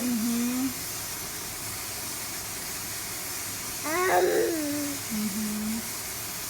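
A baby vocalizing while being fed: a short low hum just at the start, then about four seconds in a call that slides down in pitch and ends in a short, steady low hum. A steady hiss runs underneath.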